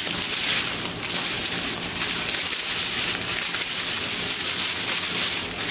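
Plastic bags of diamond-painting drills crinkling and rustling as they are handled, with a continuous crackle.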